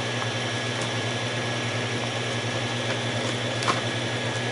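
Steady low machine hum, with faint rustles and clicks of manual pages being turned in a ring binder, the loudest a short page-flip sound a little under four seconds in.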